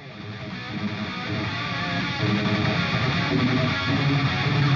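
Background music that fades in over the first two seconds, then plays at a steady level.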